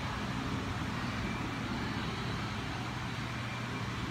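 Steady low mechanical hum under a constant wash of background noise, with no distinct events.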